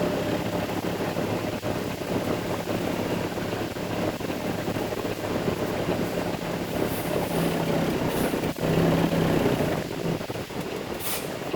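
Concrete mixer truck's diesel engine running steadily, louder for a moment about eight seconds in, then easing off, with a brief hiss near the end.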